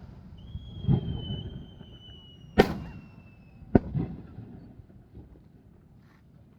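Fireworks shells bursting overhead: three booms, about a second, two and a half and nearly four seconds in, each trailing off in a rolling rumble. A thin high whistle holds through the first three seconds.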